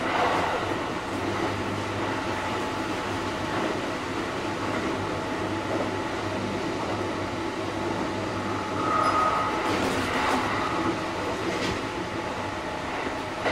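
Kintetsu 1230 series electric train (Hitachi GTO-inverter stock) running, heard on board: steady rolling noise of wheels on rail. A short high tone comes about nine seconds in, and a few brief clicks follow.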